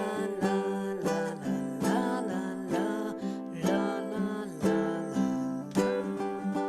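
Ukulele strummed in a shuffle groove, the chords changing about once a second.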